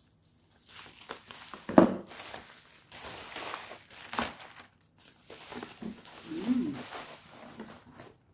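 Plastic packaging crinkling and rustling as a parcel wrapped in a plastic bag and bubble wrap is cut open and a box pulled out, with sharp crackles about two seconds and four seconds in.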